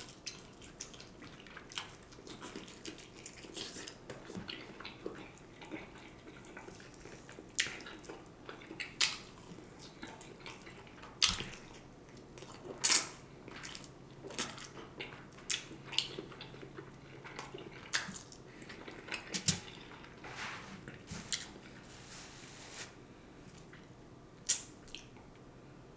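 Close-miked eating of a smoked turkey leg: wet chewing and smacking mouth sounds with irregular sharp clicks.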